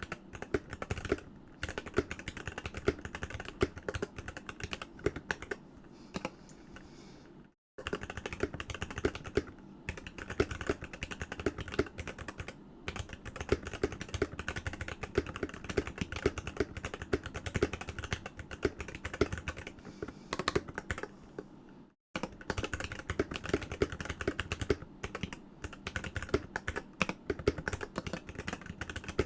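Typing on a Ducky x Varmilo Miya Pro Sakura 65% mechanical keyboard with Varmilo Sakura 45 g linear switches, cherry-profile dye-sub keycaps and a plastic case: a fast, steady run of keystrokes that breaks off briefly twice, about a third of the way in and again about three quarters through.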